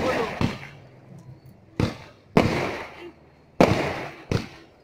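A series of sharp bangs, about six in under five seconds, each trailing off over roughly half a second.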